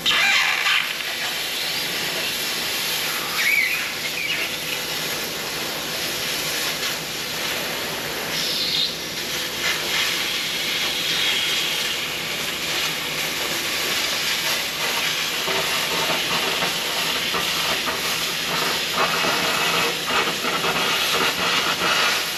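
Handheld laser cutter cutting through the Bus's sheet-steel panels: a loud, steady hiss with scattered crackling that starts suddenly and cuts off suddenly as the trigger is pressed and released.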